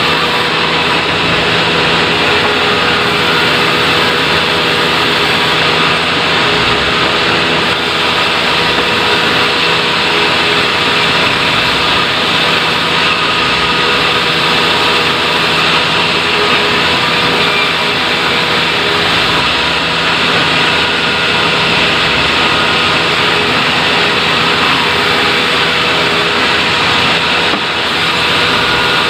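Sawmill machinery running steadily: a loud, even machine noise with a constant hum and no change in pace.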